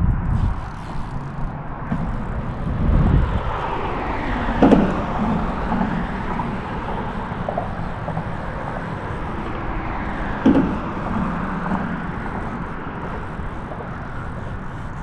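Road traffic crossing the highway bridge overhead: a steady rush of passing vehicles, with two sharp thumps about five and ten seconds in.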